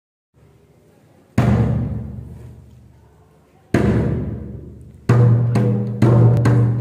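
Dramatic music with deep drum hits: two single strikes, each dying away slowly, then from about five seconds in a quicker run of hits over a held low note.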